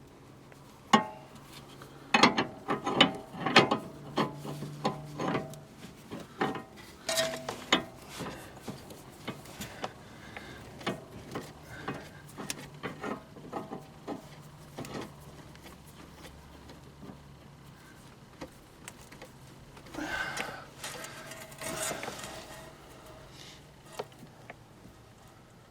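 Irregular metallic clicks, clanks and scrapes of hand tools and steel parts as a new inner tie rod is threaded onto the steering rack and tightened. Some clicks ring briefly, and there is a longer scraping stretch near the end. A faint steady low hum runs underneath.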